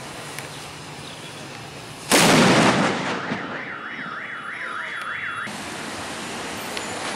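A homemade mortar firework explodes on the street about two seconds in, a single loud blast that dies away over about a second. A car alarm then warbles, rising and falling about four times a second, and cuts off suddenly.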